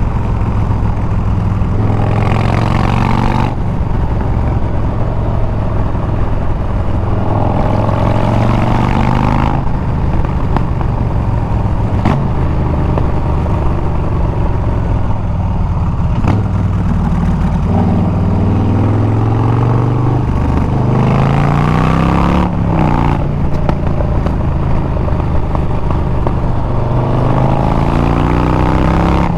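Harley-Davidson Milwaukee-Eight 114 V-twin running through Bassani straight pipes while riding. The engine note climbs several times under acceleration and drops back between climbs, as it does at gear changes.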